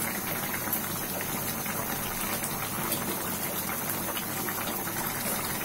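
Taro-and-prawn curry simmering in an aluminium karahi on a gas stove: a steady bubbling hiss.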